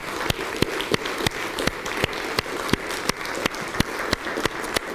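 An audience applauding, many hands clapping together at a steady level.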